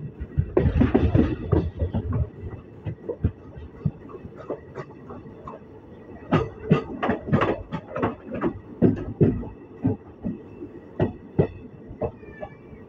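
Track sound heard from inside a moving ICF passenger coach: the wheels clack irregularly over rail joints and points above a steady running rumble. A louder burst of rumble comes about a second in, and a dense run of clacks follows between about six and nine seconds.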